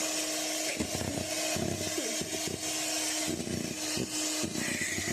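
Electric hand mixer running steadily, beating egg whites for a batter, with irregular knocks as the beaters work the bowl.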